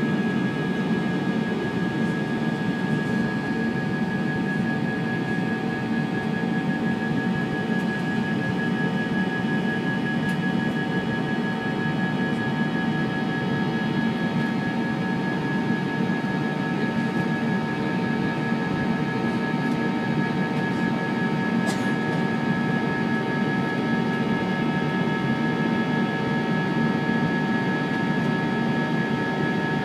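Jet airliner cabin noise during the climb after takeoff: the steady roar of the engines and airflow, with a few faint steady whining tones above it.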